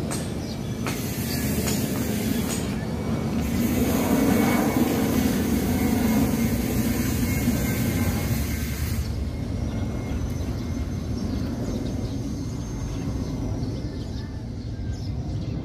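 Airbus A320 airliner's jet engines rumbling as it passes low overhead, loudest about four to six seconds in, then dropping suddenly to a quieter, more distant rumble about nine seconds in.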